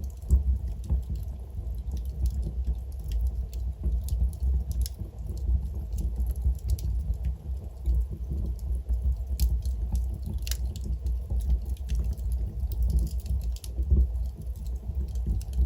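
Wood fire burning in a fireplace: logs crackling and popping irregularly over a low steady rumble of the flames, with a sharper pop about ten and a half seconds in.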